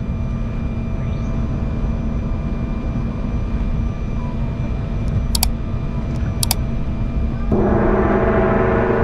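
Cabin noise of an Embraer E195 jet taxiing: a steady low rumble from the engines with a constant whine over it. Two short clicks come in the middle, and near the end a strong, steady tone with many overtones starts suddenly and holds.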